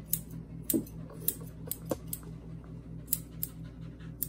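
Grooming scissors snipping a toy poodle puppy's facial hair: several crisp snips at an uneven pace, over a steady low hum.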